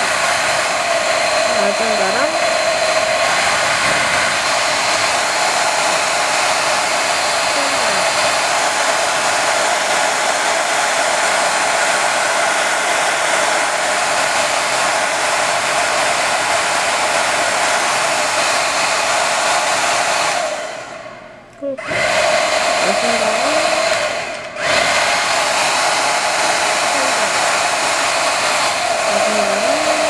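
JMW MA6001A hair dryer running, a steady rush of blown air. About two-thirds of the way through the sound tails off over about a second and cuts out briefly, then comes straight back, and a few seconds later it drops out again for a moment.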